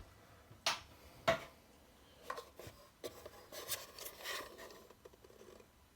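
Small parts being handled and worked by hand: two sharp clicks or knocks about half a second apart near the start, then a few seconds of irregular rubbing and scraping.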